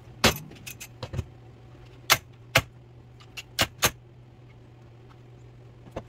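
DEWALT DWX-series saw stand being folded up: a series of sharp metallic clacks and clunks as its legs collapse and the stand is laid down, about ten in a few seconds. A steady low hum runs underneath.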